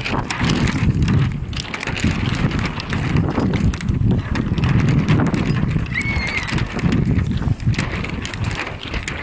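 Wind buffeting the microphone in an uneven, gusty low rumble, with scattered light ticks and a brief high squeak about six seconds in.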